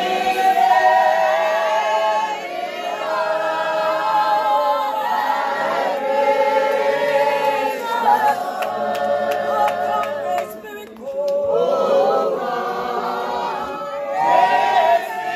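A congregation singing together unaccompanied, many voices in a cappella chorus. The singing thins out briefly about eleven seconds in, then picks up again.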